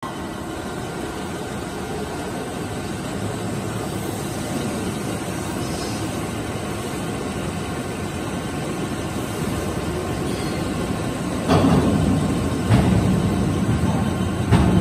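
CNC floor-type horizontal boring mill running in a machine shop: a steady mechanical hum with faint steady tones. About two-thirds of the way in, three sudden louder bursts break in, a second or two apart.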